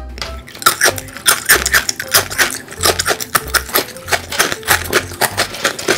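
Crisp, tube-shaped spicy stir-fried-noodle-flavoured snack being chewed close to the microphone: a rapid run of crunches, several a second.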